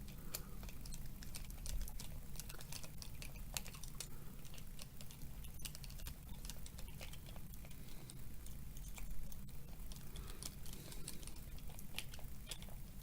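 Small beadlock ring screws on a 1.9 RC scale wheel being turned a little at a time with a hand tool: scattered light clicks and taps of the tool on the screws and ring, at an uneven pace.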